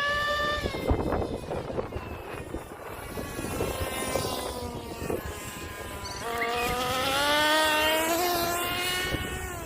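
Traxxas T-Maxx's Nitro 2.5 two-stroke glow engine revving, freshly rebuilt. Its whine starts high and drops back after about a second. About six seconds in it rises sharply to a high pitch, holds for a few seconds, then falls away near the end.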